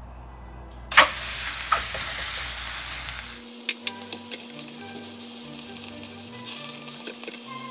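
Fatty pork laid fat side down into a dry, preheated frying pan: a sharp contact click about a second in and an instant loud sizzle, which settles to a steadier sizzle as metal tongs tick against the pan while pressing the meat.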